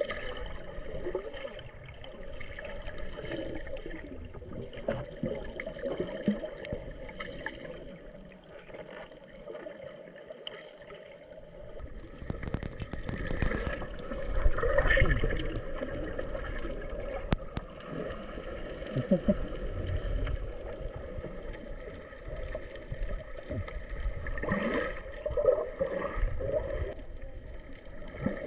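Sea water sloshing and gurgling around a camera at and just under the surface, with bubbles and a steady hum behind it. The water noise swells twice, about halfway through and near the end.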